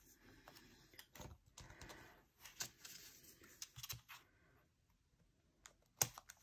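Hands smoothing a strip down on a planner page and trimming it with small scissors: faint rubbing with scattered small clicks and scratches, and a sharp snip just after six seconds, the loudest sound.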